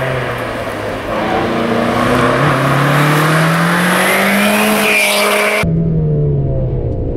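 Street-legal hatchback rally car's engine accelerating hard from the start, its pitch climbing steadily as it pulls away. About five and a half seconds in, the sound switches to inside the car's cabin, duller, with the engine note dropping.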